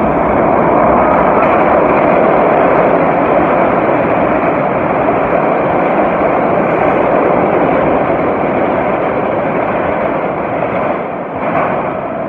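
New York City subway train running on the rails: a loud, steady rushing noise that eases a little near the end, with a couple of brief knocks.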